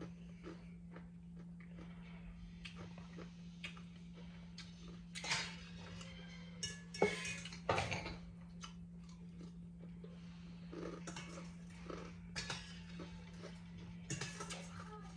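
A person eating rice noodle soup: chewing, with utensils clinking against the bowl in scattered small knocks, over a steady low hum.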